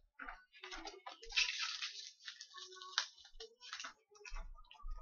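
Crinkling and rustling of trading-card pack wrappers and cards being handled, in irregular bursts with a couple of sharp clicks.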